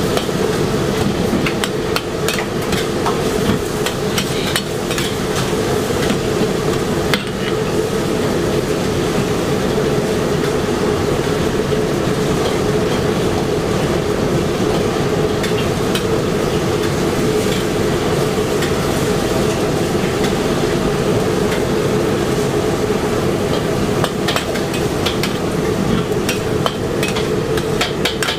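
A metal spatula and ladle scrape and clank against a wok as noodles are stir-fried, over the gas burner running steadily underneath. The knocks come thickest a few seconds in and again near the end.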